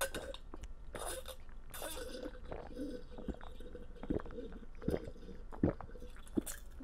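A person gulping down a drink from a glass, with sharp swallowing sounds coming about once a second in the second half.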